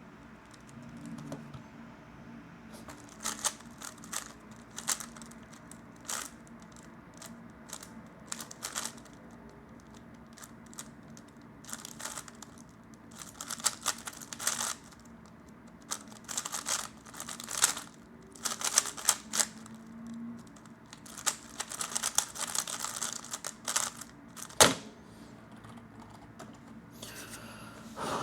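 3x3 Rubik's cube being turned fast during a timed speedsolve: bursts of rapid clicking turns broken by short pauses, with one sharper knock about 24 seconds in.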